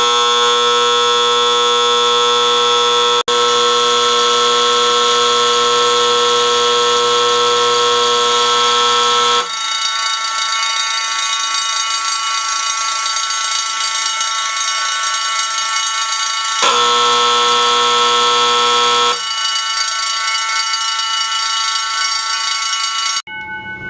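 Old-school AC fire alarm horns and vibrating bells sounding together in a loud, steady blare. About ten seconds in the loudest horn drops out, leaving the rest sounding. It comes back briefly for a couple of seconds, and then the whole set cuts off suddenly just before the end.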